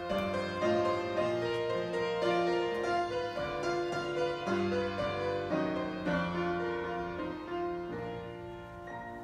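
Solo piano playing a slow classical melody over chords, the kind used to accompany ballet barre exercises, fading out near the end.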